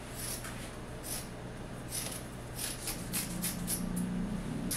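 Woven fiberglass cloth rustling and crinkling in irregular short bursts as it is unrolled and handled, over a low steady hum.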